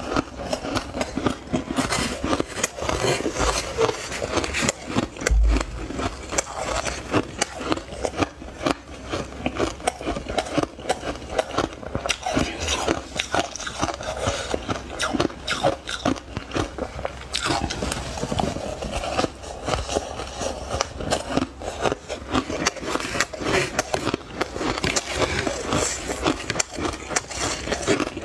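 Snowy ice crunching as it is bitten and chewed, mixed with a plastic spoon scraping and scooping through the ice; a dense, rapid crackle of small crunches throughout.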